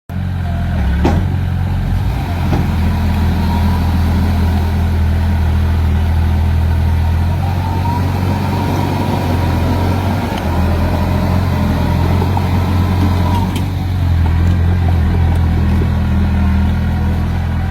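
Heavy diesel engine of earth-moving machinery running steadily under load, a deep low rumble, with a brief knock about a second in and another near the end.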